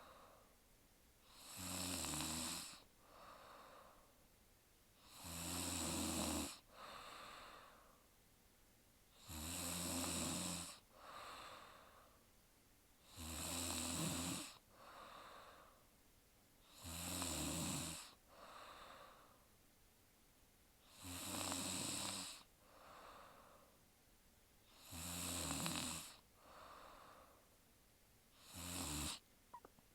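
A young woman snoring in her sleep, a steady rhythm of about one snore every four seconds, each loud snore followed by a softer breath. The last snore, near the end, is shorter.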